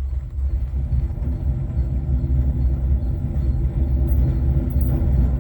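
Spiral stone drum, a spring thunder drum, giving its deep, steady thunder sound after its twisted spring is released.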